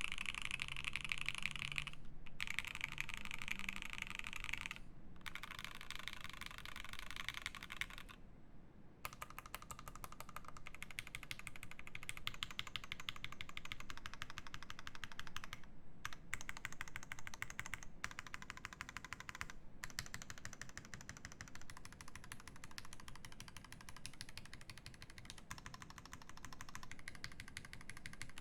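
Fast typing on a Primus 75 mechanical keyboard with lubed Turquoise Tealios linear switches in an aluminium plate and GMK Classic Red keycaps: a dense run of keystrokes with short pauses, the longest about a second, roughly eight seconds in.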